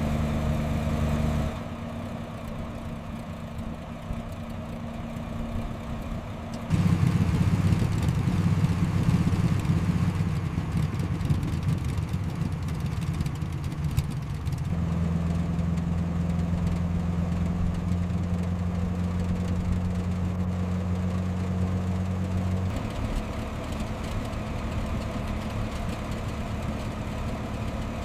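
Steady low mechanical hum of a running motor or engine, changing abruptly in pitch and loudness several times.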